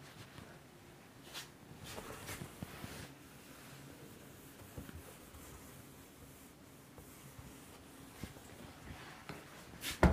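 Whiteboard duster wiping writing off a whiteboard: faint, uneven rubbing swishes, with one sharp knock near the end.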